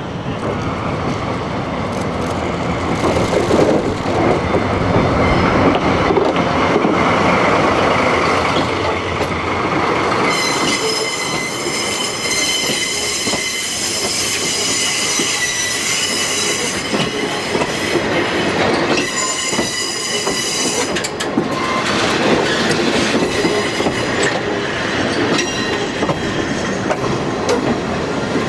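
Train of KiHa 40-series diesel railcars hauled by a diesel locomotive rolling past, wheels clicking over rail joints. High-pitched wheel squeal sets in about ten seconds in and lasts several seconds, then returns briefly a few seconds later.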